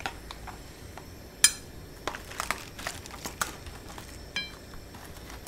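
Metal tongs and a ladle clinking and knocking against a metal pot and a plastic tray as vegetables go into the broth. The clicks are scattered: the loudest comes about a second and a half in with a short metallic ring, several more follow close together, and another ringing clink comes near the end.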